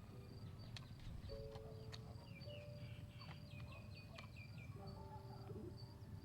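Quiet background music of held notes that move from one pitch to the next, with quick high chirps over a low rumble.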